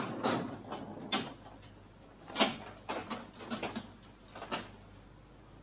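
Scattered light knocks and thumps in a quiet room, irregular, the loudest about two and a half seconds in.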